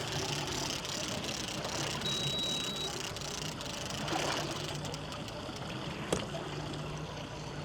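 Small fishing boat at sea: a steady low hum of its idling motor with water lapping and trickling around the hull, and one sharp click about six seconds in.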